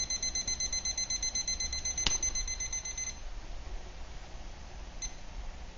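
Digital probe thermometer's temperature alarm beeping rapidly: the water in the pot has reached its 212°F set point, the boil. The beeping cuts off about three seconds in, with a sharp click just before it and a short single beep near the end.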